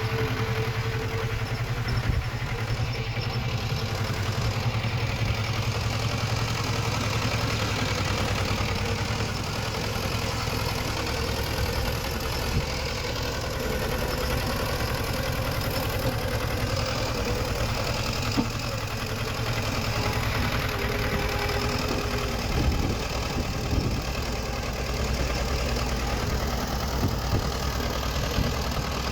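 Diesel engine of earthmoving machinery running steadily, with a few sharp knocks about two-thirds of the way through.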